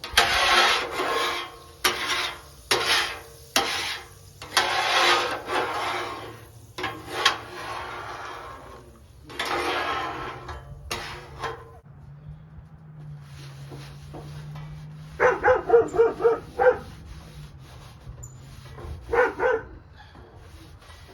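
A grill being scraped clean in a run of rough rubbing strokes, about a dozen over the first dozen seconds. Later come two quick runs of short pitched calls.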